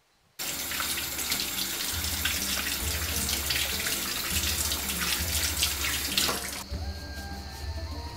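Kitchen tap running, its stream splashing over hands rinsing fruit under it; it starts suddenly about half a second in and stops about a second and a half before the end. Background music with a steady bass line plays throughout.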